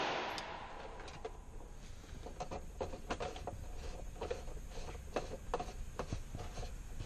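The echo of a 9mm pistol shot dying away in the hall of an indoor range over the first second, followed by faint, irregular clicks and ticks.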